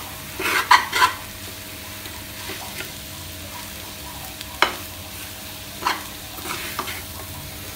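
A slotted metal spoon stirs and scrapes thick potato stuffing around a stainless steel kadhai over a low, steady frying hiss. A few scrapes come in the first second, then single sharp clicks of metal on the pan about halfway through and again a little later.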